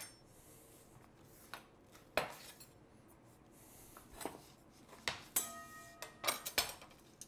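Scattered faint clinks and knocks of a stainless steel bowl and kitchen utensils being set down and handled on a cutting board; one clink about five seconds in leaves a brief metallic ring from the bowl.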